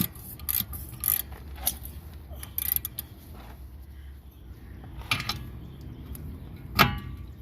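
Scattered clicks and knocks of hand tools on the metal of a car's rear hub assembly, with a louder metallic knock near the end.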